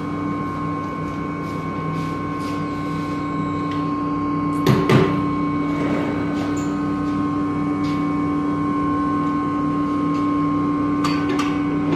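Steady machine hum of workshop equipment, with a loud knock about five seconds in and a few sharp clicks near the end.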